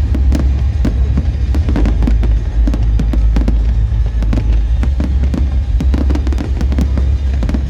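Fireworks going off in a rapid, irregular string of bangs and crackles over a constant deep rumble.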